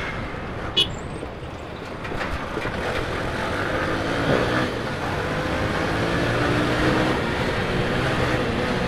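Bajaj V15's single-cylinder 150cc engine pulling under way, slowly growing louder as the bike speeds up, over steady wind and road rush.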